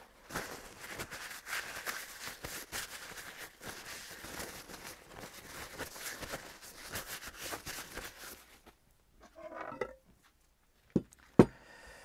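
Gloved hands rubbing grease along a bicycle suspension fork's stanchion and wiping it with a rag: a long rustling, rubbing noise with small crackles for about eight seconds, then two sharp knocks near the end.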